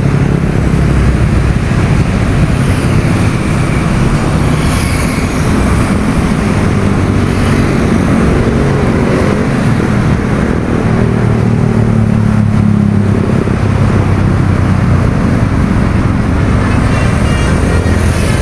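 Steady road traffic on a busy multi-lane toll road: a continuous wash of car and truck engines and tyres with a low hum.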